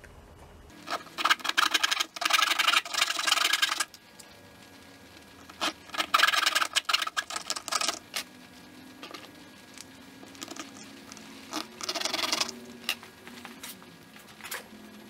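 A bare hacksaw blade sawing into an old inline fuel filter in three bursts of quick rasping strokes. The first burst lasts about three seconds, the second about two, and a short one comes near the end, with small clicks and scrapes between them.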